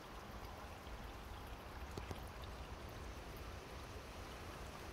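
Faint, steady trickle of water from a small solar-powered pond fountain, running weakly because the panel gets little sun, with a couple of light clicks about two seconds in.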